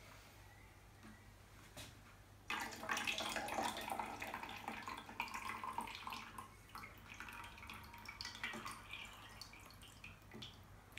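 Fixer being poured out of a Minox daylight developing tank into a plastic measuring jug: the splashing pour starts about two and a half seconds in, is strongest for the next few seconds, then thins to a trickle and drips.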